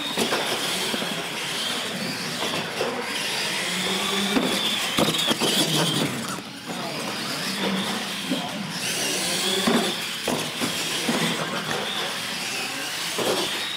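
Electric radio-controlled monster trucks racing: a high motor-and-gear whine that rises and falls as the drivers work the throttle, with scattered knocks and clatters as the trucks bounce over the floor and ramps.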